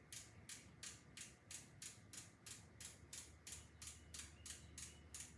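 Faint, regular ticking, about three or four evenly spaced ticks a second.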